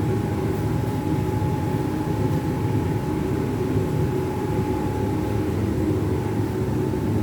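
Steady mechanical hum, like a fan or appliance motor running, with a constant high whine over a low rumble.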